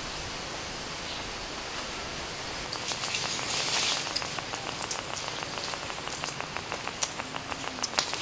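Shallow water making a steady, even hiss. From about four seconds in, it is joined by a fast run of small dry clicks and crackles.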